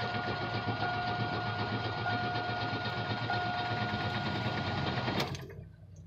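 Chevrolet Cavalier's starter cranking the engine in a fast, even rhythm for about five seconds without it catching, then stopping, with a steady high tone beneath it. The engine is flooded with fuel, which the owner puts down to leaky injector seals.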